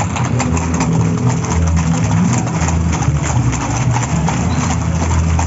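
Hooves of many horses clip-clopping on a paved street as they walk past, in quick irregular clicks over a steady low hum.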